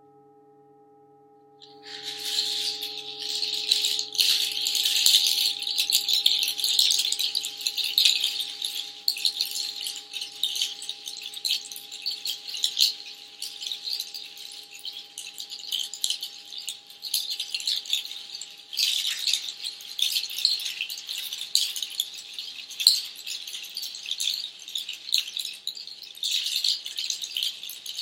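Hand shaker rattle shaken continuously in uneven swells, starting about two seconds in, over the fading ring of a singing bowl.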